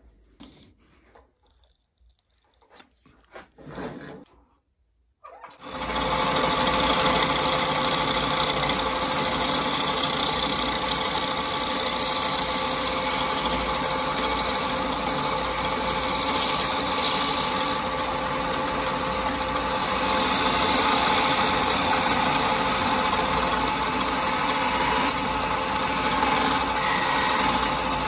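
Wood lathe switched on about five seconds in and running steadily, with a turning gouge cutting a spinning wooden blank down to a cylinder. Before it starts there are only faint handling noises as the blank is fitted in the chuck.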